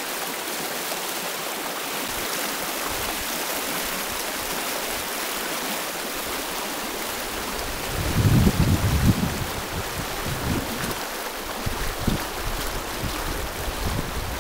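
Rock Creek, a Montana mountain stream, rushing with a steady hiss of flowing water. From about eight seconds in, gusts of wind buffet the microphone with low, uneven rumbles.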